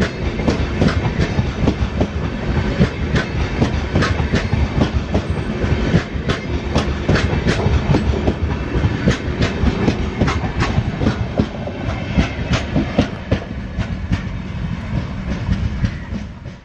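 Stainless-steel LHB passenger coaches running along the track, their wheels clattering in quick, irregular clicks over rail joints above a steady rolling rumble, easing off a little near the end.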